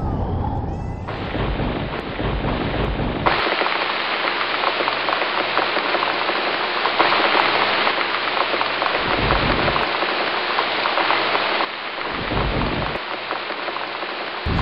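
Heavy rain hissing steadily, growing denser in sudden steps early on and easing slightly near the end, with low rumbles underneath at the start and twice more later.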